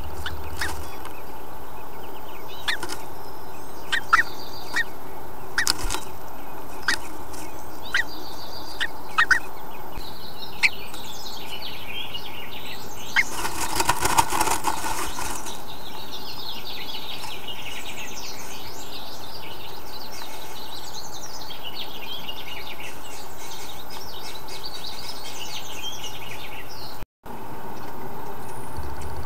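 A bluebird moving inside a wooden nest box: scratchy taps and clicks of its feet and bill on the twig nest, then a brief burst of wing flutter about halfway through. Faint bird chirps come from outside, over a steady hiss.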